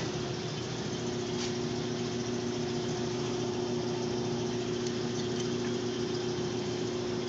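Steady machine hum from running shop equipment: an even low drone with a faint hiss behind it, unchanging throughout.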